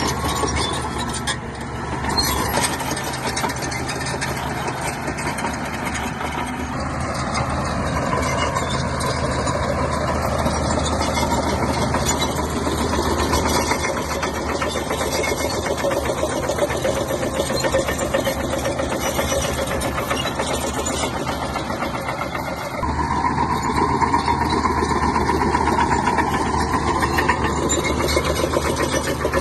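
Shantui bulldozer's diesel engine running steadily under work, getting louder about three quarters of the way through as it takes more power.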